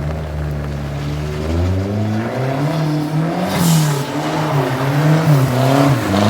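A rally-style car's engine revving hard, its pitch climbing about two seconds in and then rising and falling again and again as the throttle is worked, with a brief hiss near the middle.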